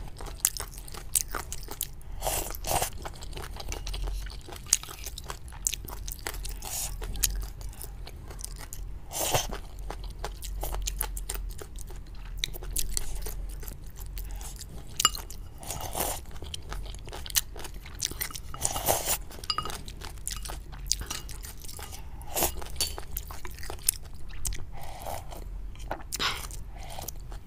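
Close-miked mukbang eating of rice noodles in spicy soup: chewing and slurping, with frequent sharp clicks of chopsticks and a spoon against the bowl. A few longer, louder slurps come every several seconds.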